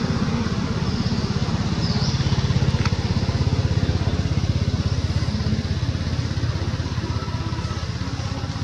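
A small engine running steadily nearby: a low, even throb with a fast pulsing beat that stays level throughout.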